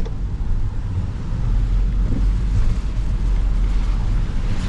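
Steady low rumble of a car being driven: engine and road noise, with no sudden events.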